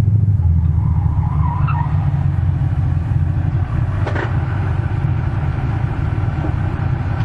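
Car engine running with a steady low rumble, holding an even speed, with a faint knock about four seconds in.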